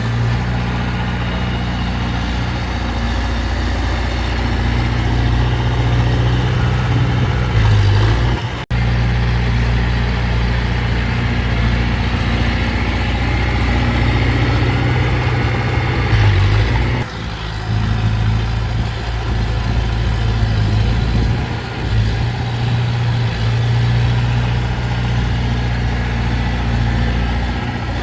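Heavy diesel engine of earthmoving machinery running steadily with a deep, even hum, its pitch and load shifting slightly a few times and briefly cutting out about a third of the way in.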